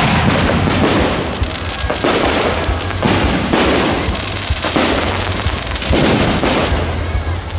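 Ground-level fireworks going off on a bridge, spraying sparks: a dense, continuous crackle that swells into loud surges about every second or two.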